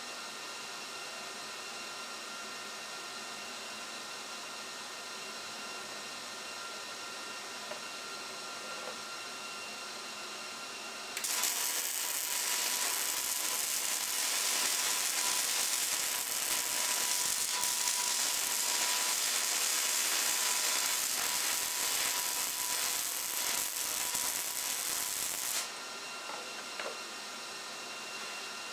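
A Millermatic 211 MIG welder running .030 wire on mild steel: about 11 seconds in the arc strikes and crackles loudly and evenly for about 14 seconds, then cuts off. A steady hiss runs underneath, with a couple of faint clicks after the arc stops.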